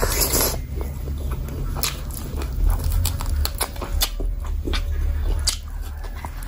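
Close-miked eating sounds: wet chewing, lip smacks and many short sharp mouth clicks as a person eats curry and rice by hand and gnaws meat off a bone, over a steady low hum.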